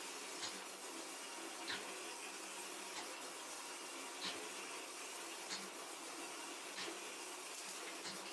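Saree dry-cleaning and rolling machine running with a saree feeding through its rollers: a steady hiss with a faint tick repeating about every 1.3 seconds.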